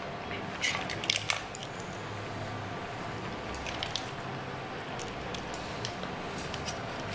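Cooked mussels being shelled by hand: scattered light clicks of mussel shells as the meat is picked out and the empty shells are set down, over a steady low background noise.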